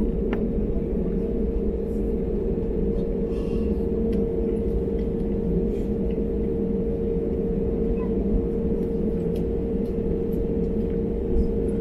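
Airbus A320neo cabin noise while taxiing: a steady low rumble with a constant mid-pitched hum from the engines and air systems, with a few faint clicks.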